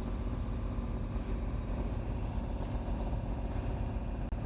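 A sailboat's auxiliary engine running steadily at an even speed, a low drone, with a split-second dropout near the end.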